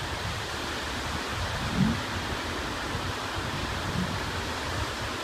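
Steady wash of surf breaking on the beach, with a brief faint distant voice about two seconds in.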